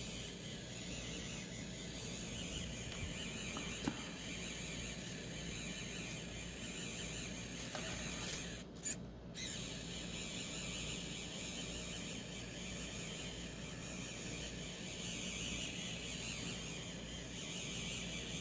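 3D pen's filament feed motor whirring steadily as it pushes PLA filament through the heated nozzle. The sound drops out briefly about halfway through.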